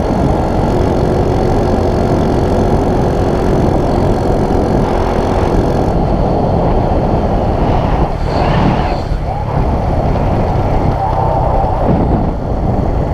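Honda Wave 125 motorcycle engine running steadily, a dense low rumble with no clear change in revs.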